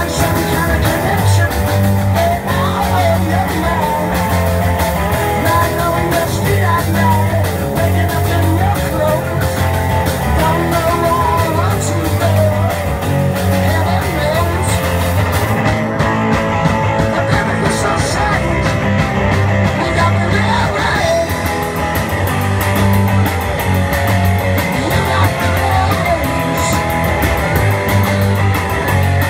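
Live rock band playing: electric guitars, bass, drums and keyboard, with a singer at the microphone.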